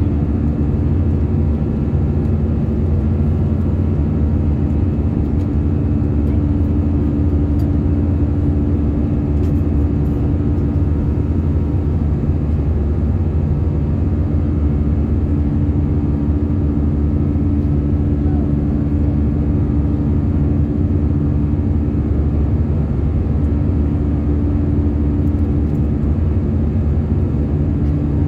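Steady in-flight drone heard inside the cabin of an Airbus A319, from its CFM56 turbofan engines and the airflow over the fuselage: a constant deep rumble with a few steady hums above it.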